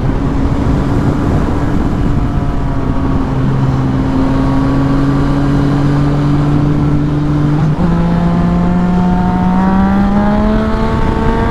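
Yamaha FZ-09's three-cylinder engine pulling under gradual acceleration, its note rising slowly. It drops with an upshift about eight seconds in, then climbs again. Heavy wind noise on the microphone runs underneath throughout.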